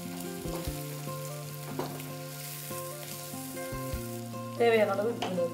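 Minced chicken and beaten egg sizzling as they fry in a pan, stirred with a wooden spatula, with a short scrape about two seconds in. Background music with held notes runs underneath, and a voice is heard briefly near the end, louder than the frying.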